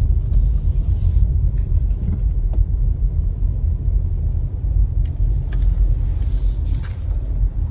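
Low, steady rumble of a Dodge Charger creeping along at a few miles an hour, heard from inside the cabin, with a few faint clicks.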